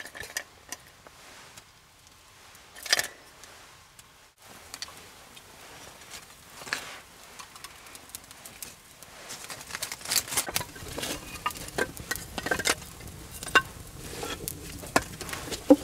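A small fire catching on resin-rich pine and cedar kindling, crackling with sharp pops that come much more often over the last few seconds. There is one brief louder rush of noise about three seconds in.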